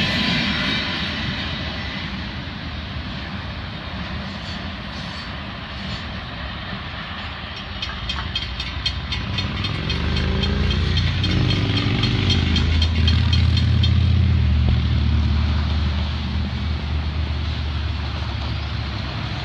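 The tail of a freight train rolls past, its wheel-on-rail noise fading away. Then a grade-crossing bell rings steadily as the gates lift. About ten seconds in, a motorcycle and cars pull across the tracks, a low engine note rising in pitch and holding as the loudest sound.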